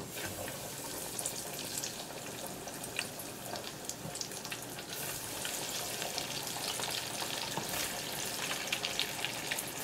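Floured squirrel pieces deep-frying in hot canola oil in a small electric fryer: a steady sizzle with fine crackling, the bubbling growing as raw pieces are dropped in.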